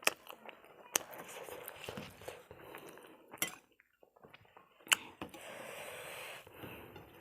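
Tableware clinking during a meal: three sharp clinks against a plate, about a second in, near the middle and about five seconds in, with soft handling noise between them.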